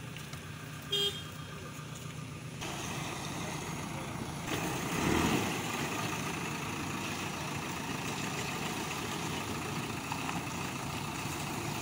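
JCB 3DX backhoe loader's diesel engine running steadily as the machine drives, coming in a few seconds in and swelling briefly just after. Before it, a short high tone sounds about a second in.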